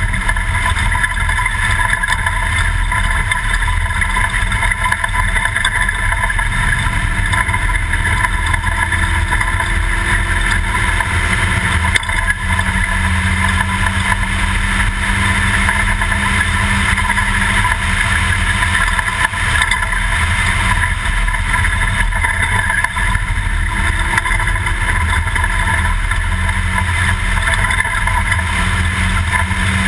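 Toyota Class 2000 desert race truck running off-road at race pace: a loud, steady engine and drivetrain noise with rumble from the rough ground, the engine pitch rising slightly a few times.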